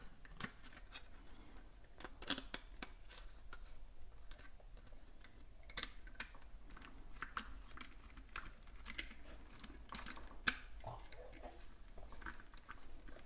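Faint, irregular clicks and light taps of a French press's plunger and mesh filter parts being fitted and screwed back together, with a few sharper clicks among them.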